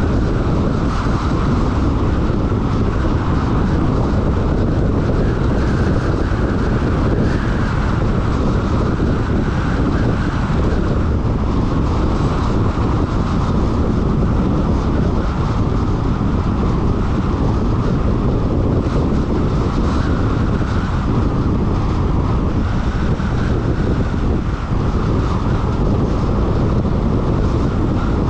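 Steady road and wind noise of a car driving along a paved road, with wind rumbling on the camera's microphone. It is an even, unbroken rush with no gear changes or other events.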